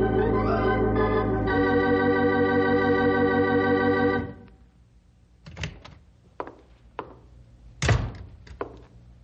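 Organ music holding a sustained chord that ends about four seconds in. Then a scatter of short knocks, with one heavier thump near the end.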